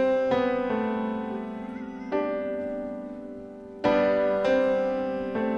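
Slow background piano music: chords struck every second or so, each ringing on and fading.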